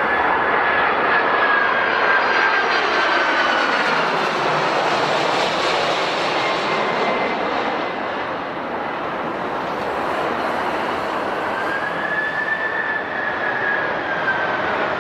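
Jet airliner's turbofan engines running close by: a steady rushing noise with a high whine that slowly falls in pitch, then rises and falls again in the second half.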